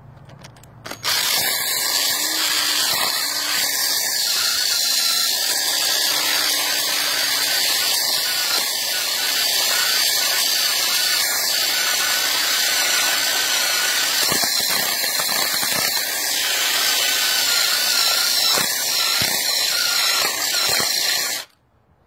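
Electric drill running with a 3/8-inch bit, grinding steadily as it widens the hole in a trimmer-rack lock bracket. It starts about a second in and cuts off just before the end.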